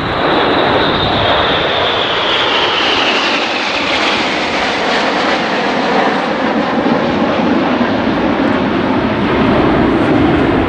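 Jet aircraft engines, loud, with a high whine sliding down in pitch over the first few seconds as the aircraft moves past, settling into a steady lower rumble.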